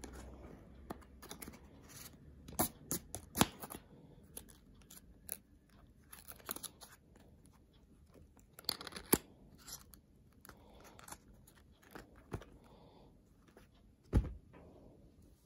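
Hands working a small paperboard product box: the thin card rustling and scraping as its tuck flap is opened and folded, with irregular sharp clicks and taps. A dull knock comes near the end as the box is moved down onto the bed.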